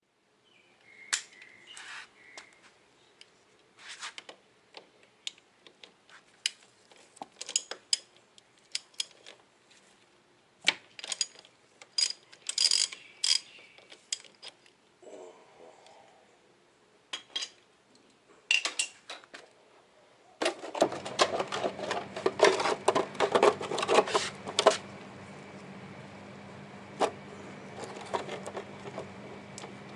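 Metal tools and parts clinking and clicking in short irregular runs. About two thirds of the way through, a steady hum with a faint high whine starts, with a quick flurry of clicks over it for a few seconds, and then runs on steadily.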